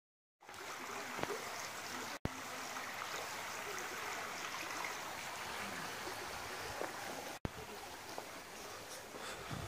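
Water running in a shallow stream over a stony bed: a steady rushing noise that cuts out briefly twice.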